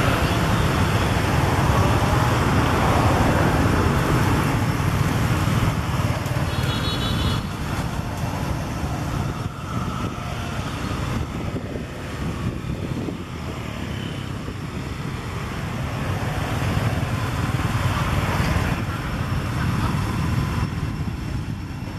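Road traffic passing: a steady rumble of vehicles that swells a few seconds in and again near the end.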